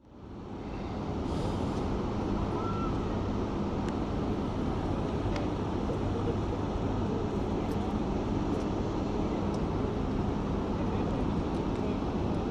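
Steady rumble of city road traffic, fading in over the first second, with a few faint clicks.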